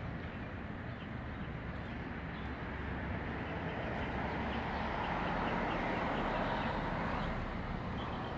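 Street traffic noise: a vehicle passing, swelling in the middle and fading near the end, with faint bird chirps over it.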